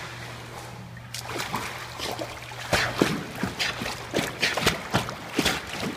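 A dog swimming in a pool, its paddling splashing the water in quick, irregular splashes that start about a second in.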